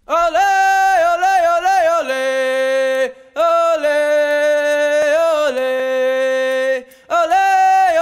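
A sung chant on the music soundtrack: one voice holding long notes with quick turns between them, in three phrases broken by short pauses about three and seven seconds in.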